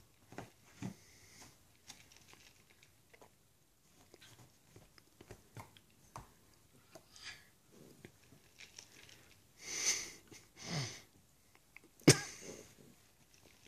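A West Highland white terrier snuffling and making small mouth noises at close range, with two loud breathy huffs about ten seconds in, the second carrying a short falling grunt. A sharp knock just after twelve seconds is the loudest sound.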